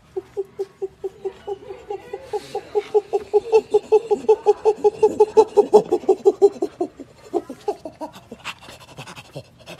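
Chimpanzee pant-hoot greeting: a fast run of short breathy hoots, several a second, building in loudness to a peak past the middle, then breaking up and tapering off near the end.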